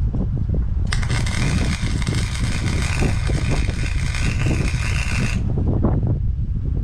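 Electric welding arc crackling and hissing for about four and a half seconds, starting and stopping sharply, as a seam is welded. Wind rumbles on the microphone underneath.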